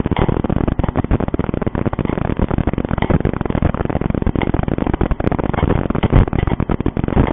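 Dense, loud crackling and scraping right at a small security camera's microphone, a steady rush of close-packed clicks, as if something is rubbing against it.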